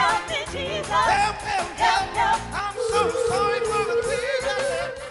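A male vocalist sings wordless, bending vocal runs over instrumental accompaniment, then holds one long steady note through the last two seconds, which breaks off suddenly at the end.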